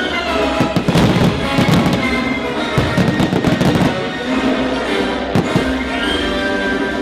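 Fireworks shells bursting in a rapid, irregular string of bangs over loud orchestral music.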